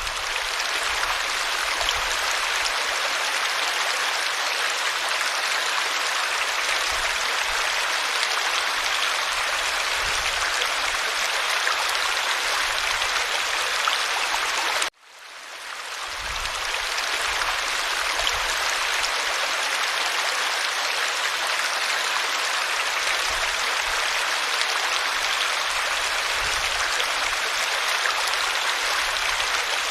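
Running water of a small stream, a steady rushing babble. About halfway through it drops out for an instant and fades back in, where the recording loops.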